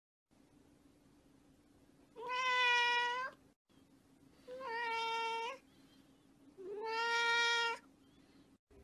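A cat meowing three times, each meow drawn out for about a second and held fairly steady in pitch.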